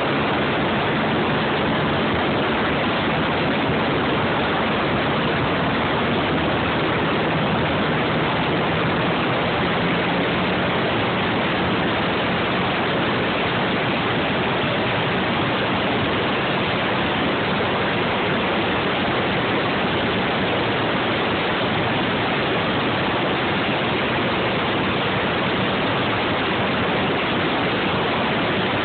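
Steady rush of wind over the microphone of a moving Suzuki Eiger ATV, with the quad's engine faintly underneath as a low drone.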